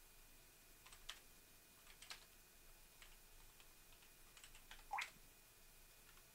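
Faint computer keyboard typing: short, irregular runs of keystrokes, with the loudest cluster about five seconds in.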